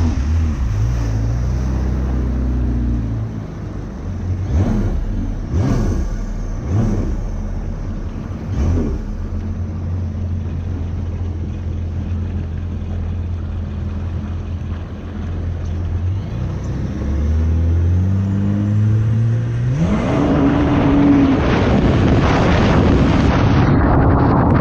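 Yamaha FZR personal watercraft with a swapped-in GP1800 four-stroke engine running at steady cruising revs, with a few sharp slaps of the hull on the water in the first half. About two-thirds of the way in the engine note climbs, and near the end it accelerates hard under a loud rush of spray and wind.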